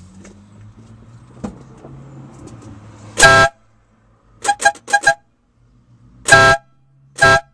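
A FIAMM air horn on a 1997 Jetta VR6 being test-sounded, very loud: one blast about three seconds in, then a quick run of about four short toots, then two more short blasts near the end.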